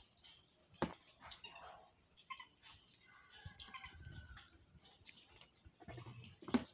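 Marmosets calling with thin, very high whistles: two long, level whistles about two and a half and four seconds in, and a short rising one near the end. Scattered clicks and knocks run between the calls.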